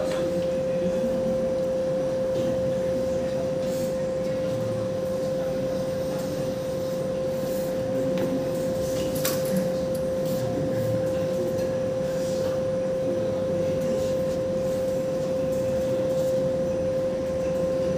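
A CNC machine running with a steady high whine over a constant mechanical hum.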